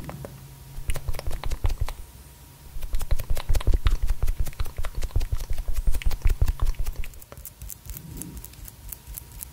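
Fast tapping and handling of a pink silicone makeup applicator right at the microphone: quick clicks with dull thumps, a short run, a brief pause, then a longer dense run that thins out and grows quieter after about seven seconds.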